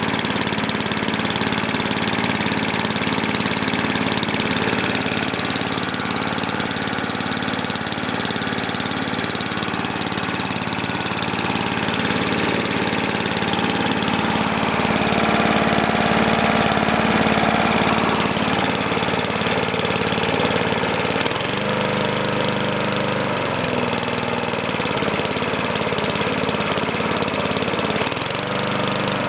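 Lawn mower engine running just after a cold start, its speed shifting a few times in the second half. The owner says the carburetor still needs cleaning out.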